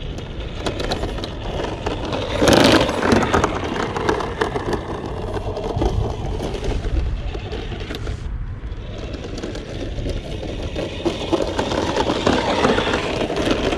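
HB Toys ZP1003/ZP1004 RC crawler truck driving off-road: its electric drive running and its plastic body rattling as it bounces, with wind buffeting the microphone. There is a louder burst about two and a half seconds in.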